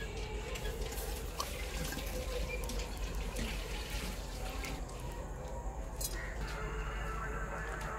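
Burning embers crackling and hissing, with a few sharp clicks as more embers are set down on a steel pot lid to give the rice its dum (slow steaming with heat from above and below).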